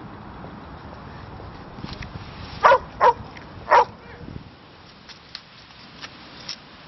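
A dog barks three times in quick succession, three short barks within about a second, roughly midway through.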